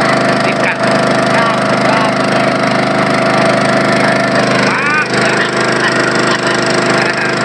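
Small boat engine running steadily at constant speed, a continuous even drone.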